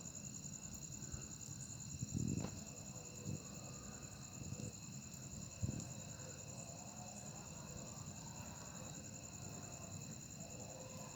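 Steady high-pitched insect trill, typical of crickets, over a low rumble, with a dull thump about two seconds in and a sharp click a little past halfway.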